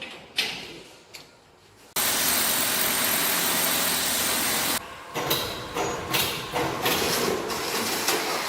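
A loud, steady hiss that starts suddenly about two seconds in and cuts off abruptly about three seconds later, between scattered knocks and clattering.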